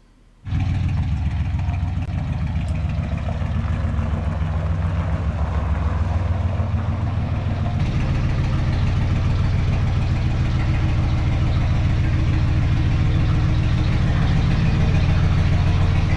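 A 1947 Plymouth's flathead straight-six engine idling steadily. It starts suddenly about half a second in. Its carburetor has just been rebuilt, and its timing and mixture screws are still to be set.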